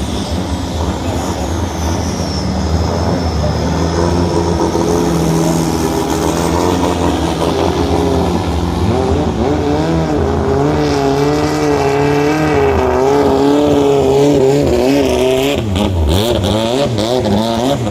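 Racing longtail boat's engine running hard at high revs. Its pitch wavers up and down as the revs rise and fall, and it climbs toward the end.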